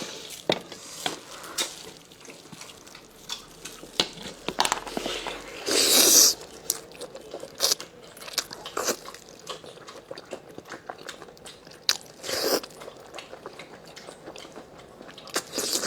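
Close-up chewing and biting of braised spicy lamb chops: irregular wet clicks and crunches as meat is pulled and chewed off the bone, with a louder noisy rush about six seconds in and another near twelve and a half seconds.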